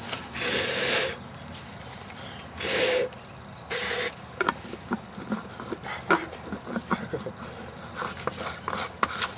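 Aerosol can sprayed in three hissing bursts, the first about a second long and the next two shorter: the fuel being squirted into a combustion potato cannon's chamber. Scattered light clicks and taps follow.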